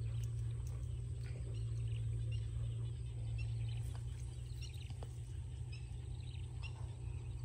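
Short high chirping calls from small animals, repeating every half second or so, over a steady low hum.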